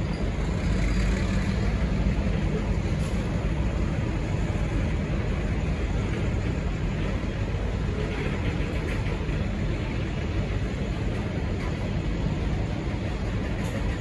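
Steady low rumble of diesel railcars running at a railway station.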